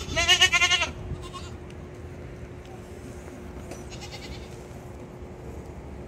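Goat bleating once near the start, a short wavering bleat under a second long.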